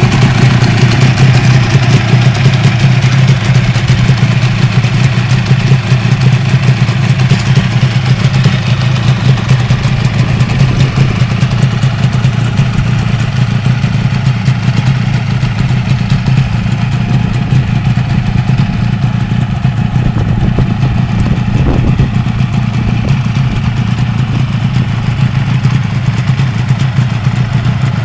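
Suzuki RG400 Gamma's two-stroke square-four engine idling steadily on the stand after a full rebuild, running well.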